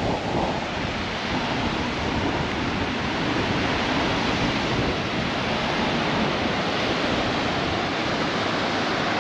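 Ocean surf breaking and washing onto a sandy beach: a steady roar of waves, with wind rumbling on the microphone.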